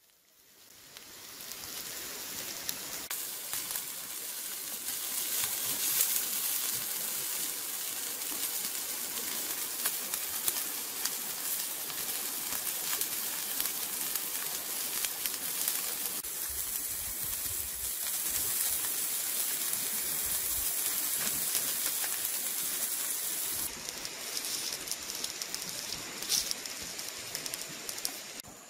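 Whole grasshoppers sizzling as they roast on a ceramic tile over an open wood fire: a steady hiss full of fine crackles and pops. It fades in over the first couple of seconds.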